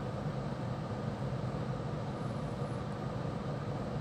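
A steady low mechanical hum with an even background hiss, unchanging throughout.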